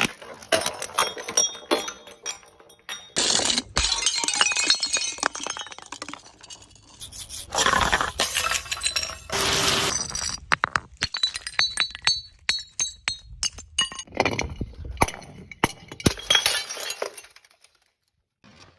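Glass bottles shattering, several crashes with many sharp clinks and tinkles of shards in between, going quiet just before the end.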